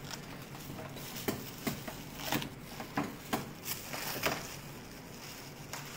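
Scattered light knocks and taps of hands handling opened durian husks and plastic food containers, about eight short sharp sounds spread over several seconds.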